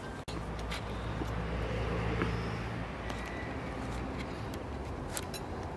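A few faint clinks of a steel fork against china plates while cutlets are served, over a steady low rumble.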